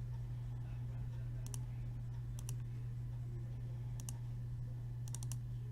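A few light computer clicks as results are worked into a spreadsheet, spaced out and then three in quick succession near the end, over a steady low hum.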